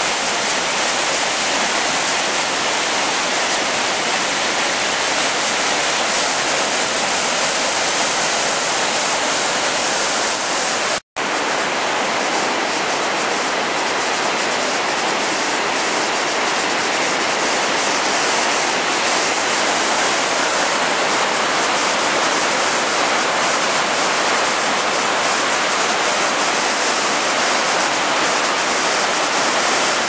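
Chaudière River falls in high water: a steady, loud rush of heavy water pouring over the falls. It cuts out for an instant about eleven seconds in, then carries on.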